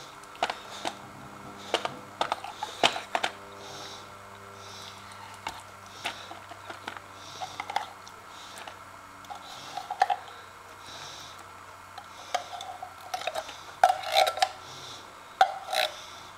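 Plastic spoon scooping canned dog food and scraping and clinking against the food bowls, in irregular clicks and scrapes that get busier near the end.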